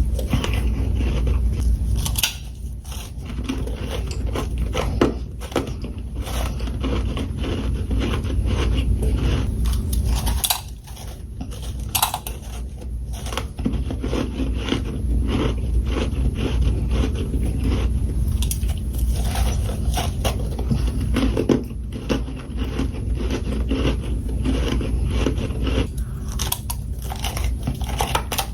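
Freezer frost being bitten and chewed close to the microphone: a dense run of irregular crisp crunches over a heavy low rumble, with brief lulls between bites.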